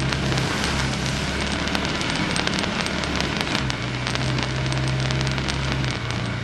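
Off-road vehicle engine pulling at low speed, its drone easing off about half a second in and picking up again past halfway, over a dense crackling of tyres working over rough trail ground.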